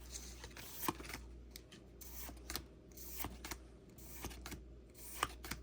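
Pokemon trading cards being flipped through by hand, giving faint, irregular soft clicks and flicks as each card slides past the next.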